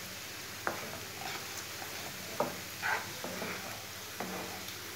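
Sliced onions frying gently in oil in a nonstick pan, a low steady sizzle, with a spatula stirring them and scraping the pan several times.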